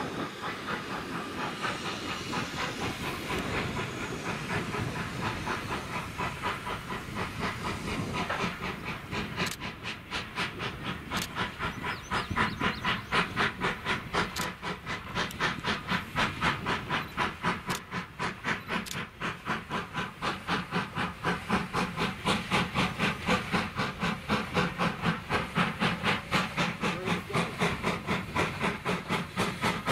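Steam locomotive dressed as Thomas the Tank Engine, exhaust chuffing as it pulls its coaches under heavy smoke. The hiss turns into a fast, even beat of sharp chuffs about a third of the way in, louder as the engine nears.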